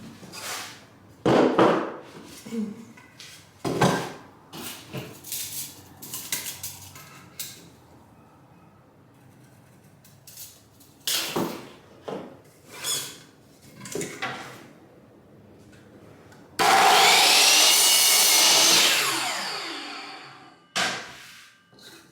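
Wood and tools knocking and clattering, then a power saw starts about two-thirds of the way in, runs loudly through a cut for about three seconds and winds down with a falling whine.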